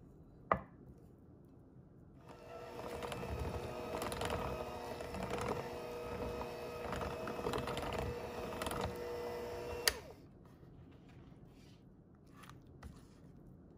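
Electric hand mixer running, its beaters whipping cream cheese, butter and powdered sugar in a glass bowl, with repeated knocks of the beaters against the bowl. The motor starts about two seconds in and cuts off with a click about ten seconds in. A single sharp tap comes just before it, about half a second in.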